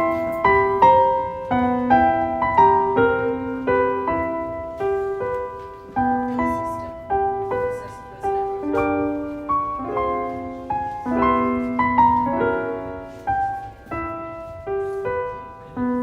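Solo piano background music: a gentle passage of single notes and chords, each note struck and left to die away.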